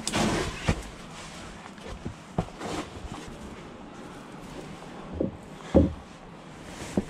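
Scattered knocks and scuffs of someone clambering between rock boulders, hands and feet against the stone and the handheld camera being jostled. The loudest knock comes near the end.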